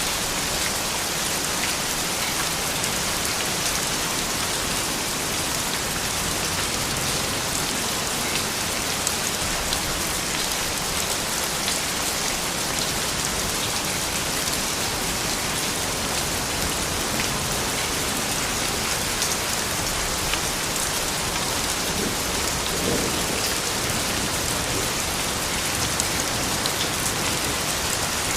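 Steady rain falling, a continuous hiss with many small drop ticks on hard surfaces.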